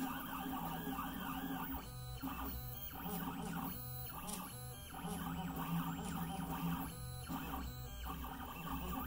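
Stepper motors of a Mostly Printed CNC (MPCNC) whining in shifting, wavering tones as the machine drives a pen around letter outlines and curves, broken by several short pauses between strokes.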